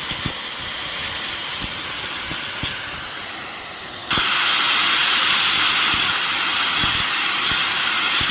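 Corded angle grinder running with its disc against a small metal channel piece, a steady hissing grind with faint knocks of the work against the bench. About four seconds in it suddenly becomes much louder and stays that way.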